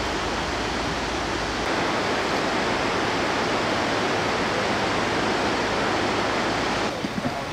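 Steady rush of white-water river rapids, a full even hiss of moving water that grows a little louder about two seconds in and drops off abruptly near the end.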